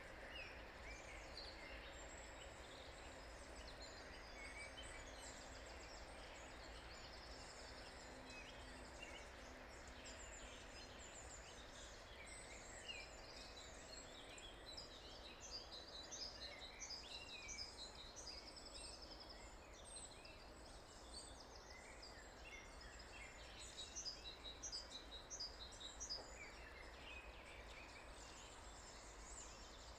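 Faint morning chorus of many songbirds: overlapping short high chirps and trills, busier in the second half, over a steady low background hum.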